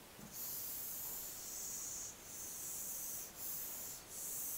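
Board eraser rubbing across the whiteboard surface in about four wiping strokes, giving a dry, scratchy hiss with short breaks between strokes.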